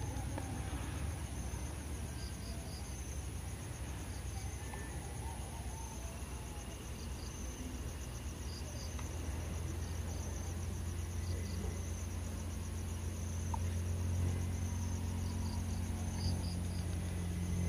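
Night insects trilling steadily in a high, fast-pulsing chorus, over the low rumble of road traffic, which swells near the end as a vehicle approaches.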